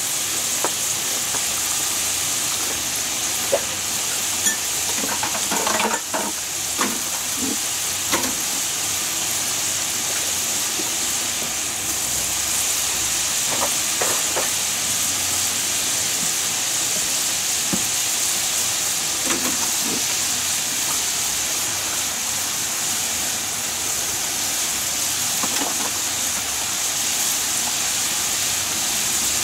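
Frozen french fries deep-frying in a pan of hot oil: a steady sizzle with a few small clicks here and there.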